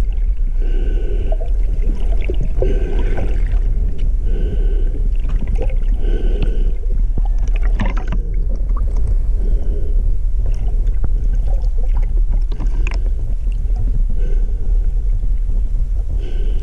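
Pilot whales calling: a series of short calls, several in the first seven seconds and a couple more near the end, with scattered clicks over a steady low rumble.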